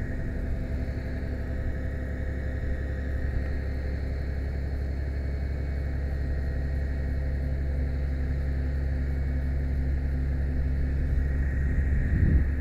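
A ladder truck's engine and aerial-ladder hydraulics run steadily as the ladder rotates, giving a low even hum with a faint higher whine. Brief wind buffets the microphone near the end.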